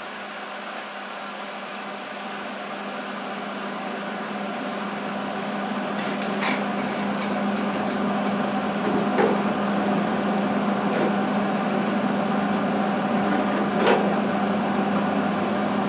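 Steady mechanical hum of running shop equipment, growing slowly louder. A few light clicks and taps sound over it as a metal level is set and shifted against the steel bedside, the sharpest about six and a half and fourteen seconds in.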